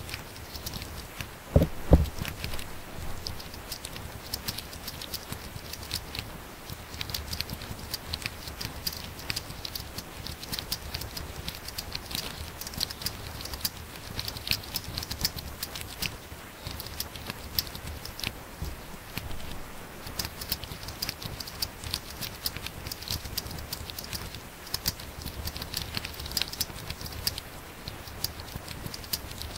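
Fast typing on a laptop keyboard: a dense, steady run of key clicks, with two louder thumps about a second and a half in.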